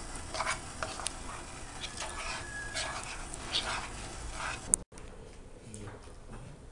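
Metal spoon stirring dissolving gelatin in a ceramic bowl set in a hot-water bath, scraping against the bowl in repeated strokes, with a brief thin high whine about two seconds in. The stirring cuts off suddenly about three-quarters of the way through, leaving quieter room sound.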